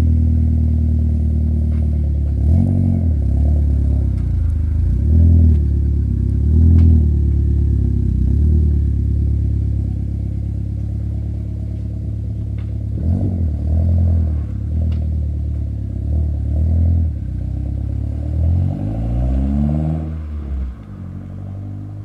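Mitsubishi Colt Ralliart's 1.5-litre turbocharged four-cylinder engine running, with a string of short throttle blips. Near the end it revs up once more and fades away as the car drives off.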